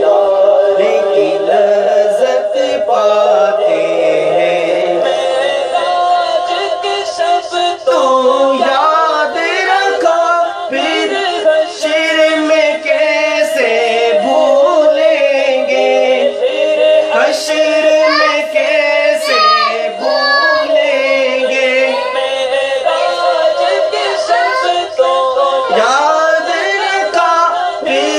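A devotional naat sung with a heavily processed voice over a steady held backing tone. The voice moves in long ornamented runs with no clear words.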